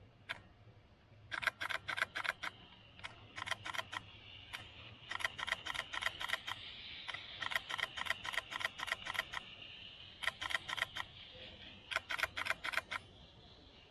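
Nikon D7200 DSLR shutter firing in repeated bursts of continuous shooting, about six frames a second, a few to eight clicks per burst with short pauses between. A faint steady hiss sits underneath through the middle.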